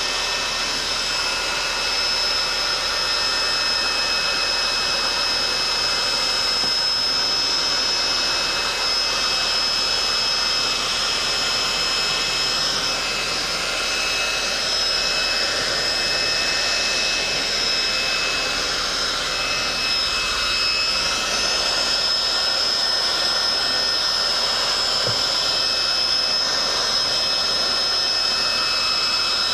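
Electric heat gun blowing hot air: a steady rush of air with a high, constant motor whine.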